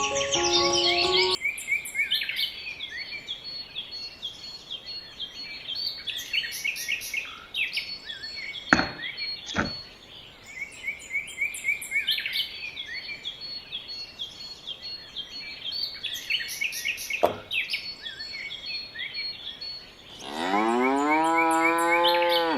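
Small birds chirping continuously, with a few sharp clicks, and one long cow moo near the end that rises and then holds. A bit of music ends about a second in.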